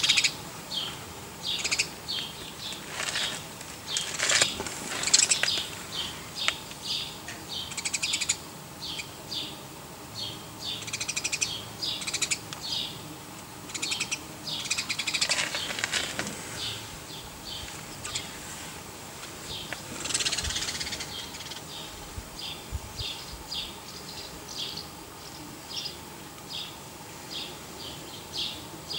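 Animal calls: short high chirps repeating about twice a second, with several callers overlapping, denser and louder in the first half.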